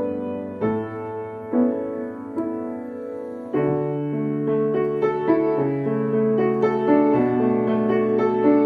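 Solo piano playing a slow, gentle melody over sparse chords. About three and a half seconds in, held bass notes come in and the playing grows fuller and a little louder, with more notes struck.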